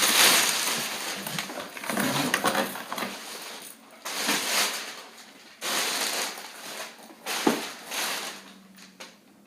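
A big shipping box being opened by hand, its packaging handled in irregular bursts of rustling and scraping that die down toward the end, with one sharp click about seven and a half seconds in.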